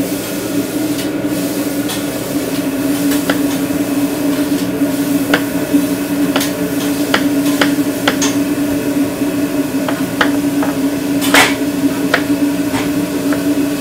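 A knife knocking on a cutting board, about a dozen sharp, irregularly spaced strokes as ginger is cut, the loudest a little past the eleventh second. A steady low hum of kitchen equipment runs underneath.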